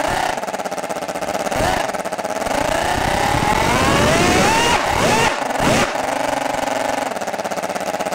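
Twin-rotor model Wankel rotary engine, made from two O.S. 49-PI single-rotor engines, running and being revved. Its pitch climbs steadily for a couple of seconds, with several quick throttle blips where the note drops and rises again, the clearest about five seconds in.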